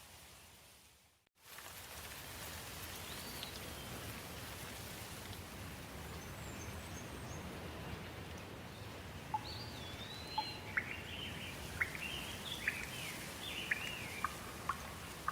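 Steady rain falling, with songbirds chirping over it; the chirps turn busy and quick in the second half. The sound cuts out briefly about a second in, then comes back.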